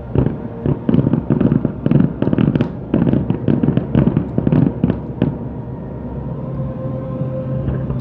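Aerial fireworks going off in a rapid volley of sharp bangs and crackles, many overlapping, that stop about five seconds in, leaving a steady low hum with sustained tones.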